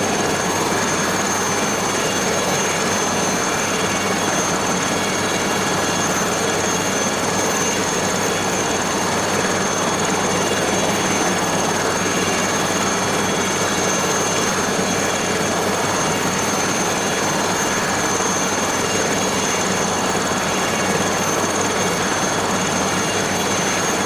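Aérospatiale SA 315B Lama helicopter running steadily: its Turbomeca Artouste turboshaft gives a high, constant whine over the steady rush of the engine and rotor.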